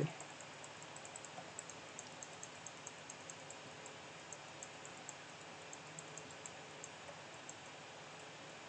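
Faint, irregular light clicks from computer use, a few a second, over a steady background hiss.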